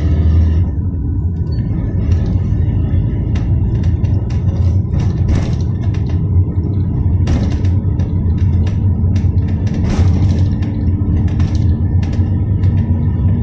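Cabin noise of a GAZelle Next minibus under way: its Evotech four-cylinder engine and the road give a steady low rumble, with occasional short knocks and rattles from the body.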